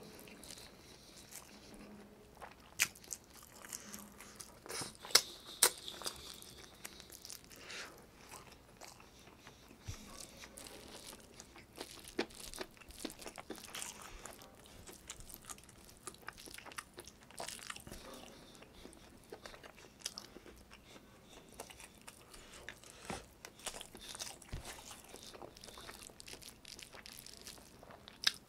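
Close-miked eating sounds: chewing and wet mouth clicks and smacks of a person eating chicken adobo and rice by hand, irregular and sharp, with the loudest smacks a few seconds in.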